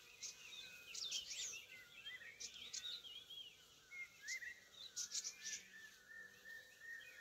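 Faint birdsong: many short chirps and whistles scattered through, with a wavering high trill over the last two seconds.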